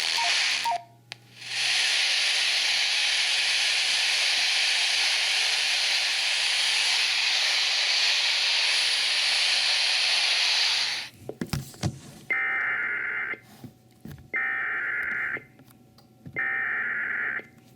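Loud radio static hiss for about nine seconds. Then come three bursts of Emergency Alert System SAME header data tones, each about a second long with about a second between them: the digital header that opens an emergency alert broadcast.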